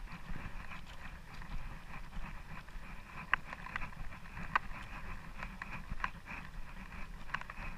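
Steady low rumble and water noise on a fishing boat at sea, with scattered sharp clicks and knocks, the loudest about four and a half seconds in.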